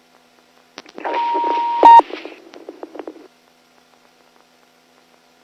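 Police radio transmission: a burst of static with a steady beep tone through it, loudest as the tone ends about two seconds in. The channel cuts off about three seconds in and goes quiet.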